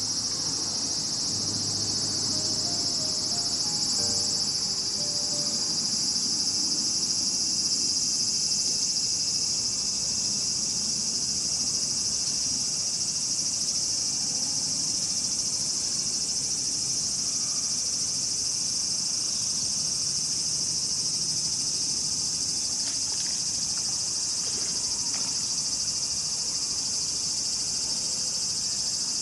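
Dense, steady chorus of insects: a continuous high-pitched shrill that holds without a break.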